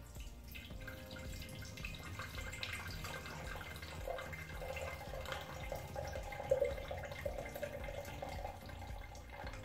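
Brown herbal infusion poured through a stainless steel colander, trickling and dripping into a ceramic jug, with a brief louder moment past the middle.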